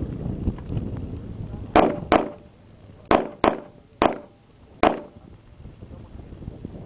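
Six gunshots, in two quick pairs and then two singles, over about three seconds.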